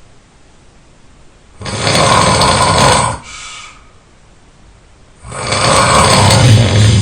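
A person snoring loudly: two long, rasping snores about three and a half seconds apart, each followed by a shorter, softer breath.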